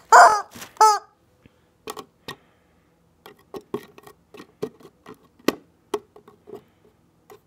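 Rubber chicken squeezed, giving two short squawks in the first second, followed by scattered light clicks and taps as it is handled against a crinkly chip bag and a wooden table.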